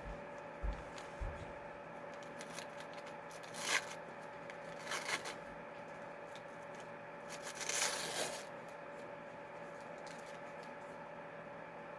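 Paper wrapper of an ice cream sandwich being torn and rustled in three short bursts, the longest near two-thirds of the way through, over a steady electrical hum.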